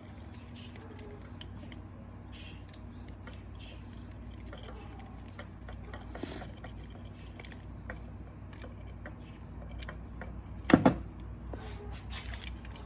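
Scattered small clicks and rattles over a low steady hum, with one sharp loud knock about eleven seconds in.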